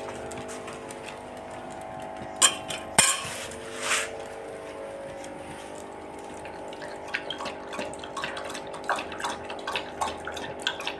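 A dog lapping water from a stainless steel bowl on a stand: a few sharp knocks against the bowl between two and four seconds in, then quick, irregular laps from about seven seconds in.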